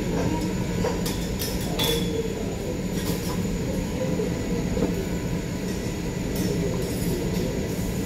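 Metal spatulas clinking against a teppanyaki griddle now and then, over a steady low rumble.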